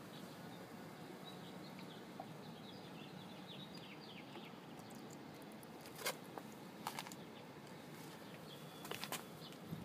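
Faint steady background hiss with small birds chirping briefly now and then, and a few sharp light clicks, one a little past the middle and a couple near the end.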